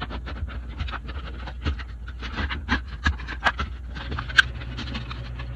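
A toaster's plastic and sheet-metal casing being handled and pulled apart: a run of small clicks, rattles and knocks, with one sharp snap about four seconds in, over a low steady hum.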